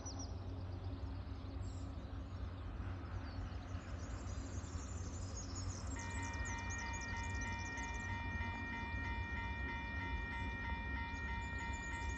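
Railway level-crossing warning bell starting about six seconds in and ringing in a rapid, even ding-ding, about two to three strokes a second, warning of an approaching train. Birds chirp over a low steady rumble.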